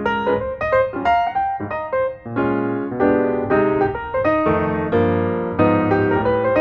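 Background music led by piano or electric piano, a light melody over sustained chords.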